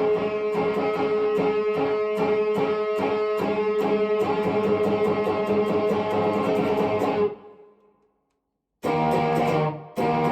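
Epiphone 1959 Les Paul Standard electric guitar playing a quick, even run of picked notes over a held note. The playing stops about seven seconds in and dies away to a second of silence before it starts again.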